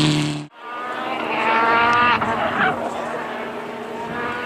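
A rally car's engine runs close by and cuts off abruptly about half a second in. It is followed by a more distant rally car accelerating hard, its engine note climbing in pitch and breaking off at each gear change.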